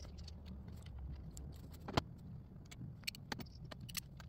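Scattered small clicks and knocks as a solar electric-fence charger is handled and fitted onto a fence post, one sharper click about two seconds in and a few more around three seconds, over a faint low rumble.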